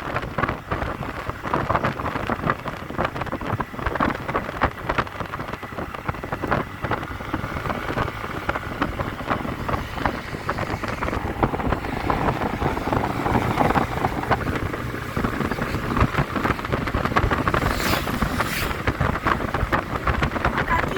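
Wind buffeting the microphone on a moving motor scooter, an uneven gusting rush, with the vehicle's engine and road noise beneath it.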